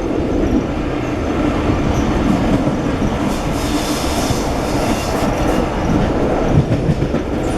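Railway coach of a steam-hauled train running along the track, heard from inside: a steady rumble of wheels on rails. About three seconds in, a higher hiss or squeal from the wheels rises for a second or two, then fades.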